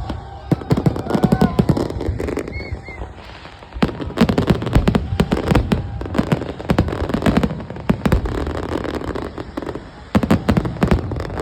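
Fireworks going off in rapid volleys of sharp bangs and crackles, easing off briefly about three seconds in and again near the end before picking up once more.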